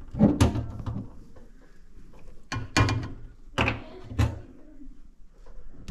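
Kitchen utensils knocking and clattering: a few sharp knocks near the start, a quick run of clinks around three seconds in, then two more knocks.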